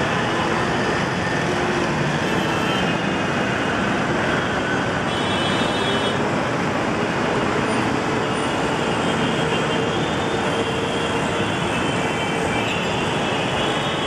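Busy road traffic: a steady, dense wash of many vehicles' engines and tyres, with a few faint higher tones rising out of it here and there.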